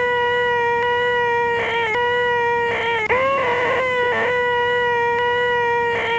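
A man's voice holding a loud, shrill, nasal 'eeeeeh' on one steady pitch, the 'most annoying sound in the world', broken by a short catch about three seconds in and again about a second later, then carrying on.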